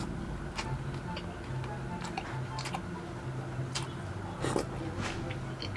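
Close-up eating sounds: chewing with scattered sharp crunches and clicks, the loudest about four and a half seconds in, over quiet background music with a steady low pulse.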